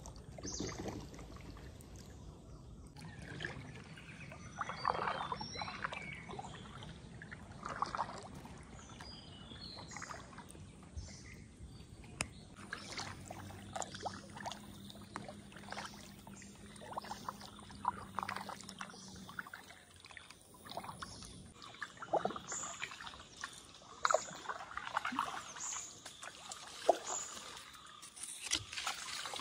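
Kayak paddle dipping into calm water, with small splashes and water trickling off the blades at irregular intervals. Brief bird chirps come through now and then.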